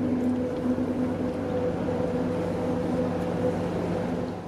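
Steady drone inside a tour bus with its engine running: an even hum with a constant low tone.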